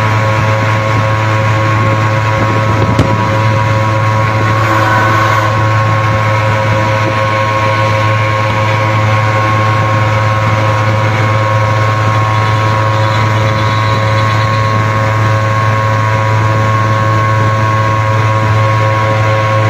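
Suzuki two-stroke van engines running at steady, unchanging revs during a road race, over a steady rushing noise. A single click about three seconds in.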